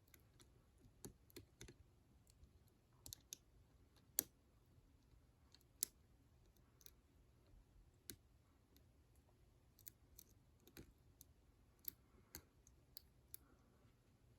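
Faint, irregular clicks of a lock pick working the pin stack inside a Master Lock 7050 ProSeries six-pin padlock under light tension. About a dozen sharp ticks come at uneven intervals, the loudest about four and six seconds in.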